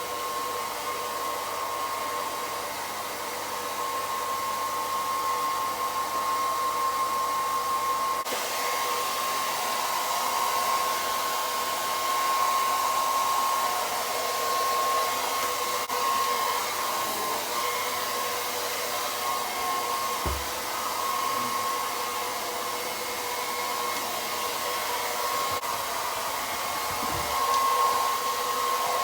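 Handheld hair dryer running steadily, blowing on a dog's coat, a constant whine over the rush of air.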